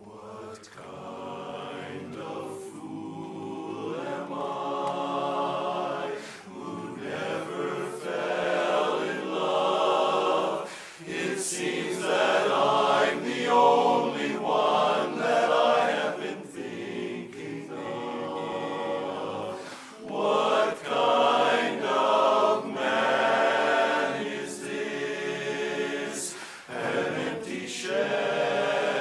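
A men's barbershop chorus singing a cappella in close harmony, many voices together with no instruments. The singing starts softly and builds over the first few seconds, then runs in swelling phrases with short breaths between them.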